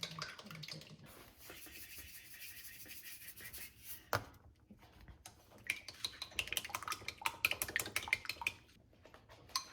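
A raw egg being beaten in a bowl: a utensil clicks and scrapes rapidly against the bowl, densest in the second half, after a few seconds of soft hiss.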